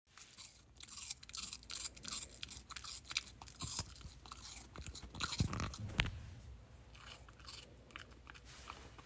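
A Jindo-mix puppy chewing apple: crisp, wet crunches at an irregular pace, loudest about five to six seconds in.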